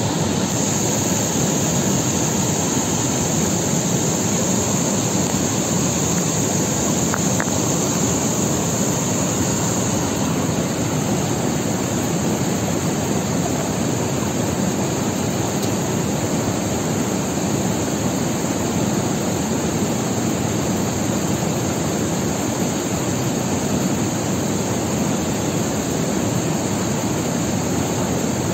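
Steady rush of a fast mountain river or stream, an even unbroken noise.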